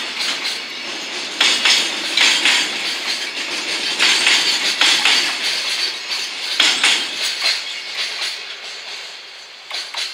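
Container wagons of a freight train rolling past, their wheels clattering over the track joints in repeated clusters of sharp clanks over a steady rolling noise. The sound eases off near the end.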